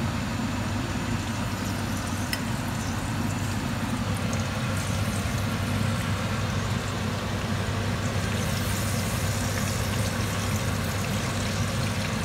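Mackerel steaks sizzling and crackling in hot oil in a frying pan, the crackle growing louder about eight seconds in, over a steady low hum.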